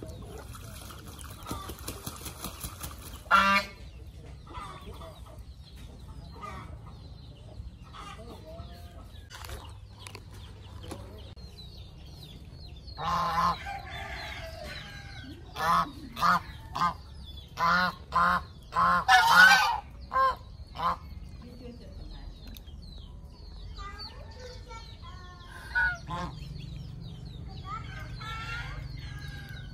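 Domestic geese honking: one loud honk about three seconds in, then a run of short, repeated honks in the middle, and another honk later.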